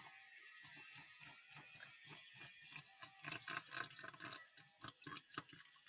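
Faint wet clicking and tapping of a thin liquid mixture being stirred in a cup, with a soft hiss under it. The slime mixture is still runny and has not thickened.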